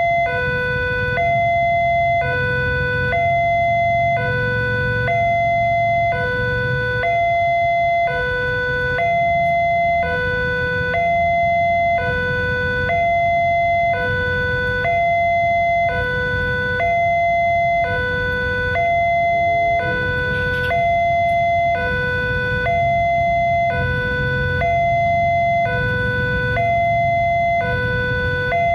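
Railway level-crossing warning alarm (the Indonesian electronic crossing siren) sounding its repeating two-tone signal, a higher and a lower note alternating, each held about a second: the sign that the barriers are down and a train is approaching.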